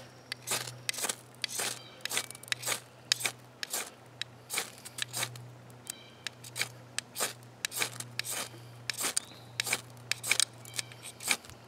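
Ferro rod scraped hard with a steel striker again and again, about two quick rasping strikes a second, throwing sparks onto pieces of charred wood to try to catch an ember.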